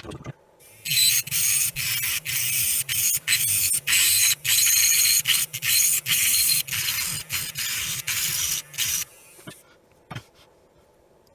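A hand tool working at the inspection camera's head module: a harsh, loud scraping noise in quick, uneven strokes that starts about a second in and stops near the end.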